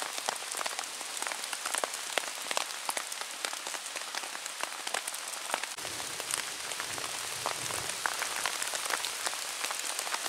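Steady rain falling, a continuous hiss with many separate drops striking close by on a tarp.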